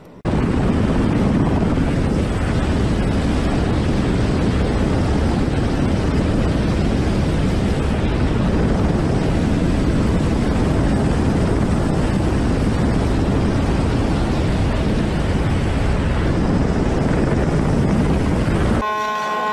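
Helicopter in flight heard from its open doorway: loud, steady rotor and engine noise mixed with wind rush. It starts abruptly just after the start and cuts off near the end.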